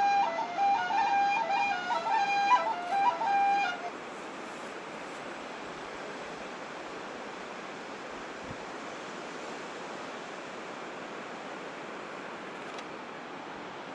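A flute melody plays for the first few seconds and cuts off about four seconds in. Then a steady rushing noise of flowing water from the spring and stream continues.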